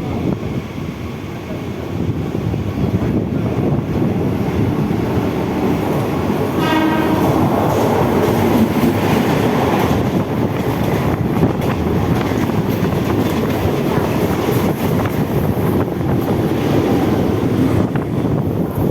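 Mumbai suburban electric local trains running past on the tracks: a steady rumble of wheels on rails, with one short horn blast about seven seconds in.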